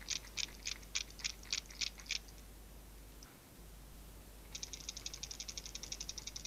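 Tsuyoki Watson 110SP wobbler shaken by hand: the long-casting weight system rattling inside its hollow plastic body with a ringing click. The clicks come about three a second for the first two seconds, then, after a pause, a quicker, denser rattle near the end.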